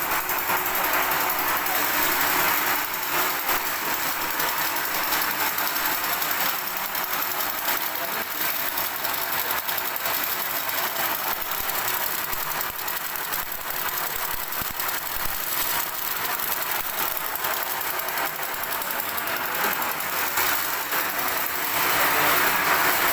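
Electric extruder machine running: a steady, even mechanical noise.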